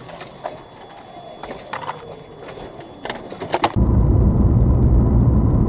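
A few light clicks and knocks, then, almost four seconds in, a sudden switch to the loud, steady, low rumble of a vehicle's engine and road noise as it drives along.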